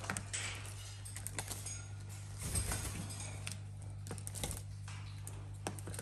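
Light, irregular clicks and taps from a caique parrot and an eclectus parrot scuffling and playing on a fluffy pet bed, over a steady low hum.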